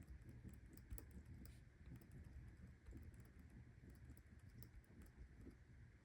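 Near silence with faint, scattered small ticks and taps of a pen writing in a paper planner.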